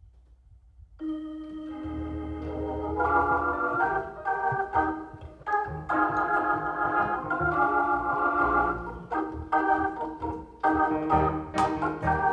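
Hammond-style church organ comes in about a second in, playing sustained chords over a bass line as a gospel song's introduction, with a few sharp hits near the end.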